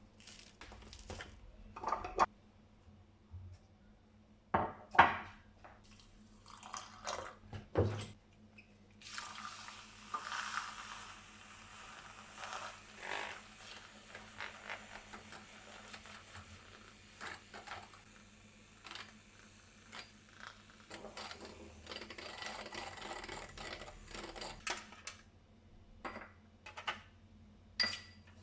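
Kitchen sink work: a few clinks and knocks of dishes, then a tap runs steadily for about fifteen seconds while things are rinsed, with more knocks near the end.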